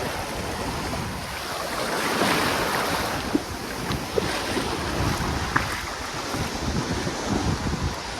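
Sea waves washing onto a sandy beach, with wind buffeting the microphone; the wash swells about two seconds in and then eases.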